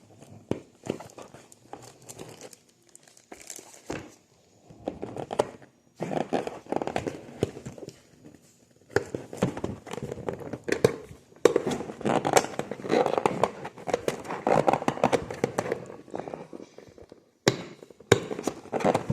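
Packaging being handled and opened: crinkling and rustling of plastic and paper wrapping, with scattered sharp clicks and taps, in irregular bursts with short pauses.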